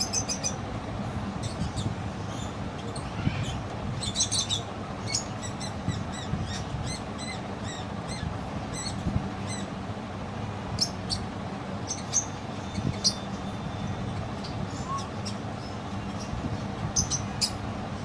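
Caged budgerigars giving short, high, scattered chirps and squeaks over a steady low hum.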